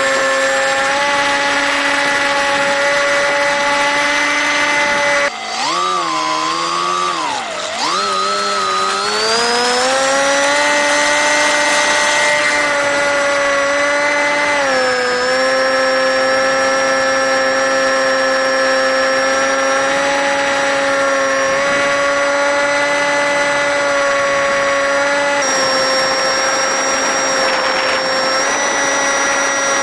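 Small RC park-flyer plane's electric motor and propeller running at high throttle, a steady whine. About five seconds in the throttle drops: the pitch wavers and falls, then climbs back to full power over a few seconds, with small steps down in pitch later on.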